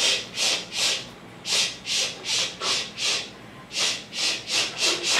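A dog panting in quick, even breaths, about three a second, in three runs broken by two short pauses, while hair is pulled from its ear.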